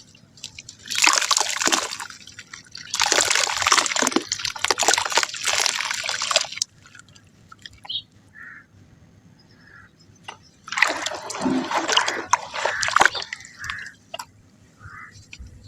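Soft mud crumbling in water: wet splashing and sloshing in three bursts full of fine crackles, the middle one the longest.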